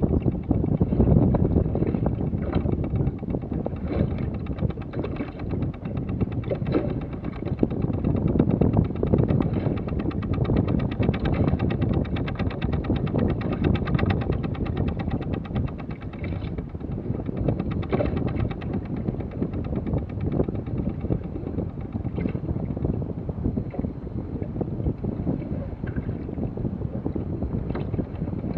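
Wind buffeting the microphone aboard a sailing yacht moving slowly under sail, a steady, gusting rush with a few faint clicks or knocks scattered through it.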